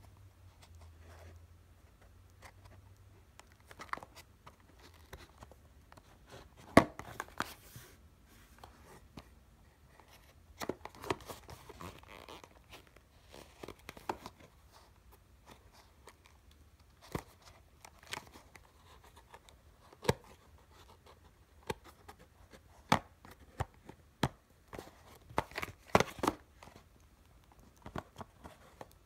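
Hands handling a small cardboard toy box and its cellophane wrap: scattered taps, crinkles and tearing sounds, with the sharpest tap about seven seconds in and a quick cluster of clicks and tearing near the end as the box's perforated opening tab is pushed in.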